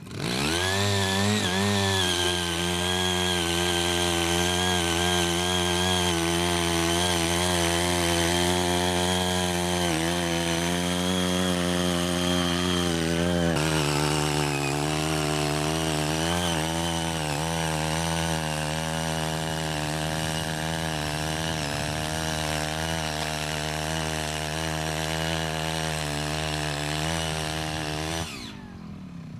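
Small petrol engine of a CY80 mini power tiller running steadily under load as it cuts a furrow, its pitch wavering slightly. It revs up in the first second or two and drops off suddenly near the end.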